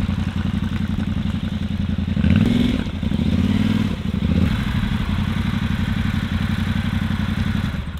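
Yamaha Ténéré 700's parallel-twin engine running steadily, with the revs rising briefly twice around the middle.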